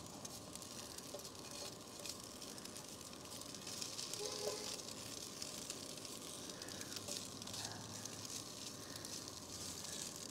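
Sausage links sizzling faintly in an uncovered electric skillet, a steady fine crackle.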